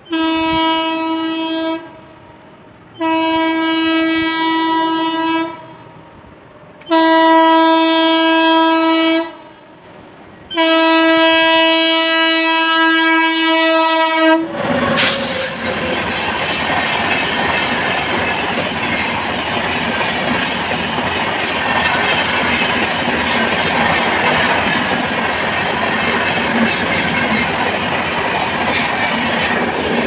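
Rajdhani Express electric locomotive sounding four long horn blasts as it approaches at about 130 km/h, the horn's pitch dropping as the locomotive passes about fourteen seconds in. Then the train's coaches rush past at speed, a loud steady rumble of wheels on rail with clickety-clack over the joints.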